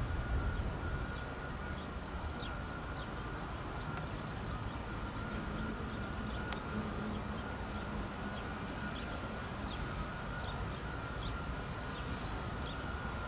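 Airbus A320neo's Pratt & Whitney PW1100G geared turbofan engines idling at a distance before takeoff: a steady thin whine over a low rumble, with short high chirps throughout.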